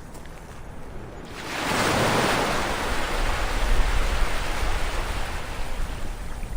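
Ocean waves washing onto a shore: one wave breaks and rushes in about a second and a half in, then its wash slowly fades.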